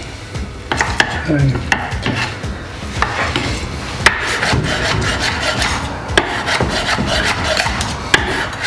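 Knife cutting and pulling apart tender cooked chicken on a chopping board: scraping and rubbing with sharp knocks of the blade on the board, about once a second.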